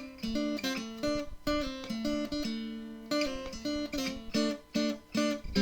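Intro music: acoustic guitar picking a run of notes.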